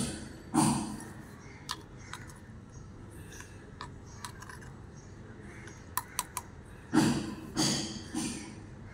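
Crows cawing: one caw near the start and a run of three harsh caws about seven seconds in. A few light clicks fall in the gap between them.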